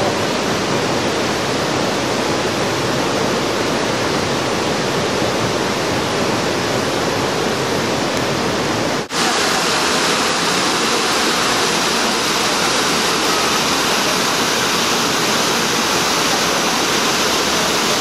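Small waterfall cascading over rocks into a pool: a steady rush of water, with a brief dropout about nine seconds in.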